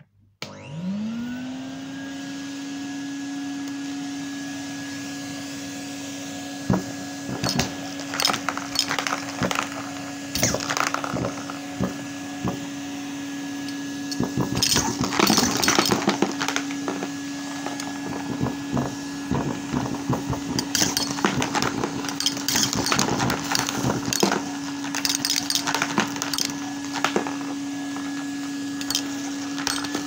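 Henry canister vacuum cleaner switched on about half a second in, its motor whining quickly up to speed and then running steadily. From about seven seconds on, pom-pom balls and glass marbles are sucked up the hose, clicking and rattling through it.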